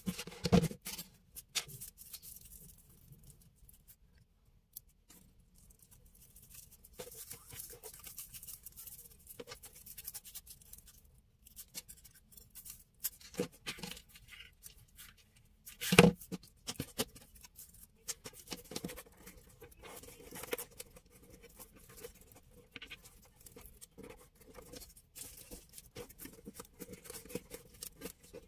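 Dry natural raffia strands rustling and scratching as they are handled, bundled and wound by hand, with scissors and small tools now and then knocking on the tabletop; the two loudest knocks come about half a second in and about sixteen seconds in.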